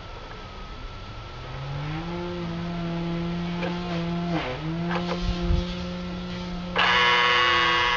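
Power-extend motor of a GMC Sierra towing mirror running, driving the mirror head along its freshly cleaned slide track: a low hum that rises a little in pitch as it gets going, with a brief dip and a few clicks midway. Near the end a much louder, higher buzz starts abruptly.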